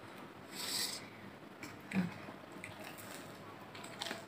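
Quiet close-up eating sounds: scattered soft clicks and mouth noises of biting and chewing, with a short hiss a little under a second in and a brief murmur about two seconds in.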